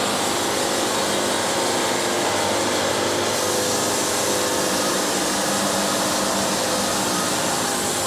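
Wood-Mizer LT70 bandsaw mill sawing through a walnut cant: a steady, even run of band noise with the mill's diesel engine under it. The band is getting a little dull and starting to scrub.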